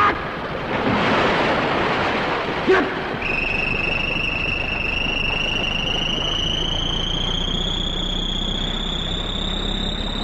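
Tokusatsu fight sound effects: a short shout, a rush of noise, and a second brief cry, then from about three seconds in a steady electronic whistle that climbs slowly in pitch.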